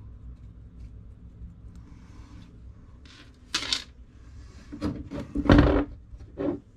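Light handling rustle of fishing line and tackle, then a sharp knock and a cluster of clunks as a metal disc sinker on its line is set down on a hard tabletop, the loudest about five and a half seconds in.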